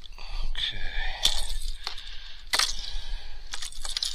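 Handling noise from fishing gear being worked with the hands: a few sharp clicks and light metallic clinks over rustling, the loudest click about two and a half seconds in.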